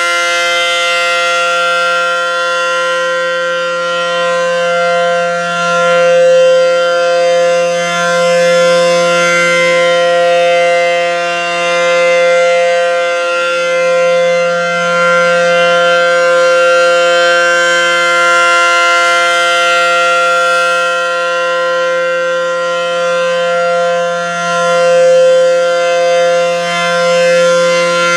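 ACA Allertor 125 outdoor warning siren sounding its steady alert signal: one continuous tone that holds its pitch, with slow swells in loudness.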